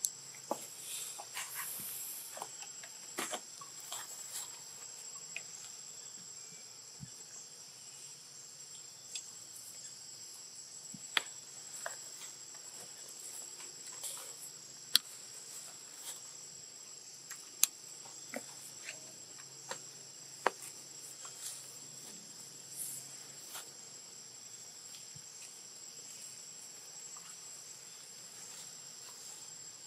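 Steady chorus of insects, a continuous high-pitched buzz and whine. Scattered sharp clicks and taps cut through it, a few louder ones in the middle.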